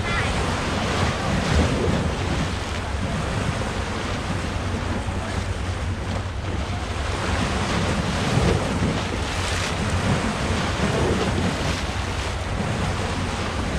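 Sea surf washing steadily against a rocky shore, with wind buffeting the microphone.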